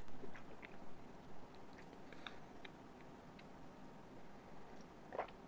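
Faint chewing and small wet mouth clicks of a person eating soft durian cheesecake. It dies down to near quiet about two seconds in, with a short throat sound near the end.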